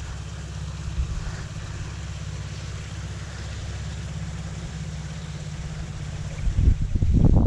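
Low wind noise buffeting the camera microphone with a faint hiss, steady at first and gusting louder near the end.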